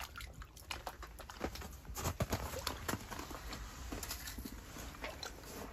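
Burbot thrashing at the surface of an ice-fishing hole, splashing water and slush: an irregular run of small splashes and knocks.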